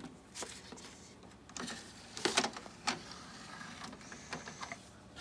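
Motorised disc tray of a CD changer closing and the changer loading the disc: a faint motor whir with several clicks and clunks, the loudest clunk a little over two seconds in.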